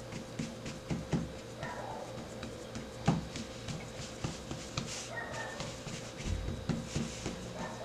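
Hands pressing and patting a buttery crushed-cookie crust into a metal pie pan: soft, irregular taps and knocks, with a firmer knock about three seconds in. A faint steady hum runs underneath.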